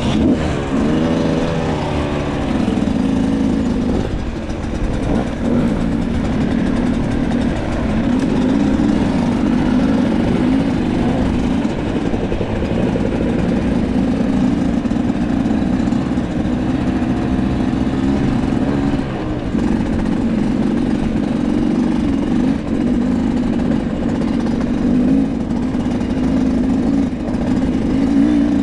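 Beta enduro motorcycle engine running, its revs rising and falling now and then with the throttle.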